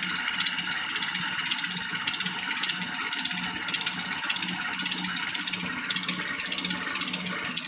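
Moulinex food processor motor running steadily at speed, beating an egg, sugar and oil cake batter in its bowl.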